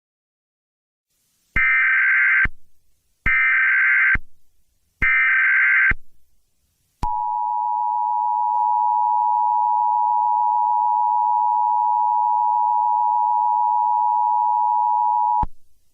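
Emergency Alert System test signal. It opens with three short identical bursts of SAME digital header data, a buzzy warble about a second and a half apart. Then comes the EAS attention tone, a steady two-tone beep held for about eight seconds that cuts off suddenly.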